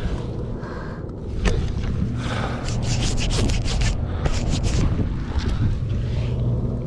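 Water sloshing and swirling in a plastic gold pan as it is worked, with rubbing and handling noise close to the microphone, over a steady low hum. The sloshing comes in surges, busiest in the middle.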